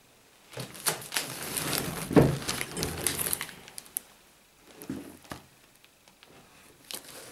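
A cardboard box handled and turned over: cardboard scraping and rubbing with sharp clicks and knocks, the loudest about two seconds in, then a few softer knocks near five seconds.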